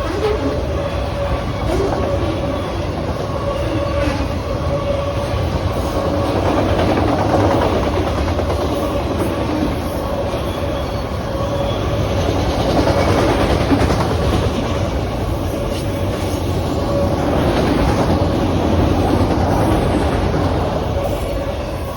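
Freight train of autorack cars rolling steadily past, with wheels clattering over the rails and the rolling noise swelling and easing as the cars go by.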